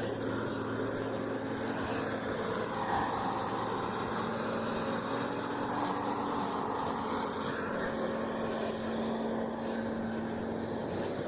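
A vehicle engine running steadily with a low, even hum, over a haze of outdoor noise.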